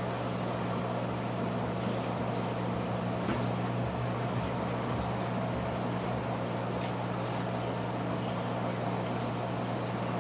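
Aquarium pump running with a steady low hum, over the even rush of water bubbling through the tank.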